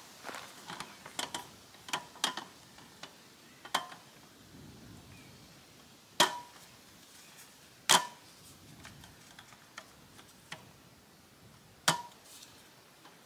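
Metal frame and leg joints of a folding wooden-slat camping table being set up: a run of light clicks and taps, then three sharp metallic clicks with a brief ring, the last near the end, as the legs are locked in place.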